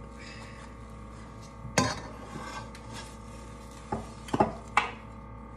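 Spatula scraping under a pancake and knocking against a stainless steel frying pan while flipping it: one sharp knock about two seconds in, then three quicker knocks near the end.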